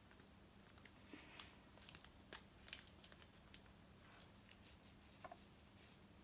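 Faint scattered clicks and brief light rustles of tiny craft stars and their small packet being handled between fingers and dropped into a locket, against near silence.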